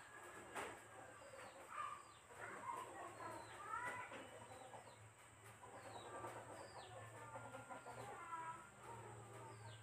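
Chickens clucking faintly in the background, with small birds giving short repeated chirps, and one sharp click about half a second in.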